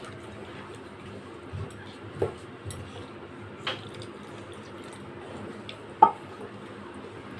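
Hot water poured from a steel cup into chicken curry simmering in a kadhai, stirred with a wooden spoon, thinning the gravy. A few short knocks against the pan, the sharpest about six seconds in.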